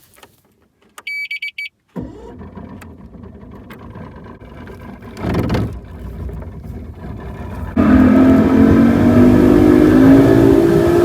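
A short run of electronic beeps, then a bass boat's outboard motor starts and runs at low speed; near the end it is throttled up and runs loudly with rising pitch as the boat gets under way.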